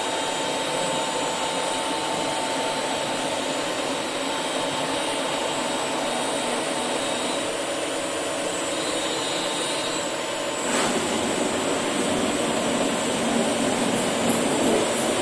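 Automatic brush satin-finishing machine running with a steady whirring hiss. About two-thirds of the way through there is a click, after which the sound is slightly louder and fuller.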